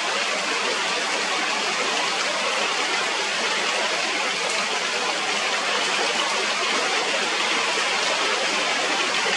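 Heavy rain falling steadily, an even hiss with no breaks and no bird calls.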